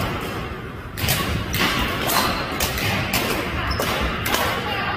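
Badminton rally: rackets striking the shuttlecock in a quick exchange, a sharp crack roughly every half second from about a second in.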